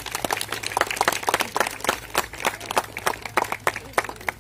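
A small group applauding, with many uneven sharp hand claps.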